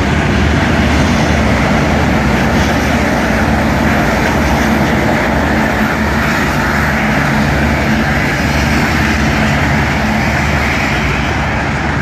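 Loud, steady rumble and rushing noise of a moving train, unbroken throughout.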